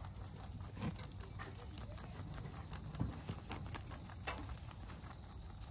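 Rabbits crunching on fresh leafy greens and grass stalks: a quick, irregular run of crisp little bites and chewing clicks.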